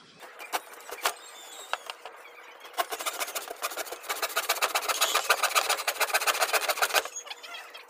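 Hand saw cutting through plywood: a few sharp clicks first, then from about three seconds in a fast, steady run of rasping saw strokes that stops about a second before the end.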